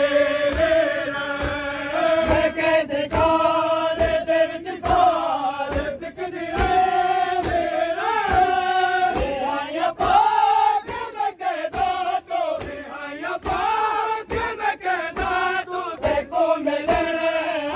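A crowd of men chanting a noha together in long, wavering held notes, with hand-on-chest matam strikes beating in a steady rhythm underneath.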